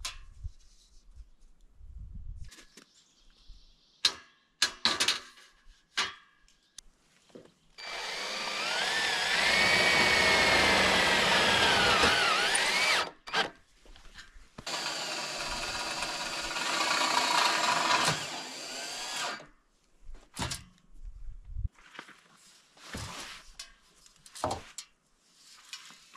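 A power drill running into wood in two long runs, its motor pitch rising and falling as it loads; the second run is quieter. Scattered knocks and clicks come before and after.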